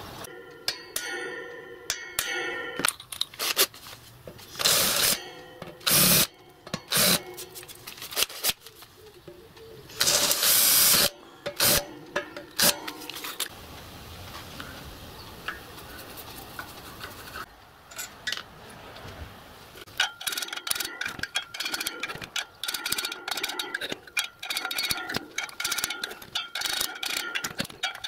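Small hammer rapidly tapping a steel punch to drive the smokebox off a model locomotive's copper boiler, many quick ringing metallic ticks from about two-thirds of the way in. Before that, scattered loud knocks and handling noises as the boiler fittings are worked on.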